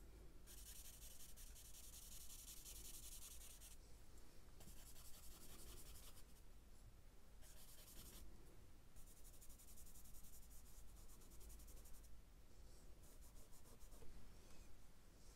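Faint scratching of a charcoal stick on sketchbook paper: shading strokes in several stretches a few seconds long, with short pauses between them.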